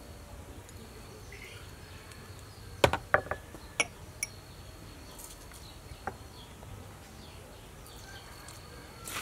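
A few sharp clicks and knocks from sauce containers and a bowl being handled as seasonings are poured over chicken, bunched about three to four seconds in, with one more about six seconds in. Behind them a faint, steady high insect chirr comes and goes.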